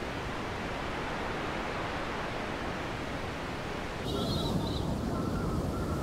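Steady hiss of wind and rain in the open air. About four seconds in it turns louder and rougher, with faint high chirps over it.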